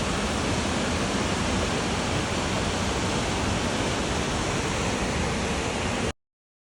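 Steady rushing roar of a waterfall, with no other sounds; it cuts off abruptly about six seconds in.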